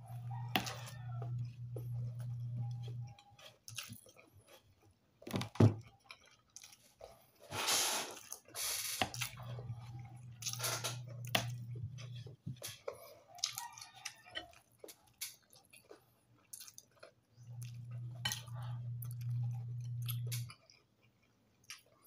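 A person chewing a mouthful of rice and fried tilapia eaten by hand, with scattered mouth clicks and smacks. A steady low hum comes three times, each lasting about three seconds.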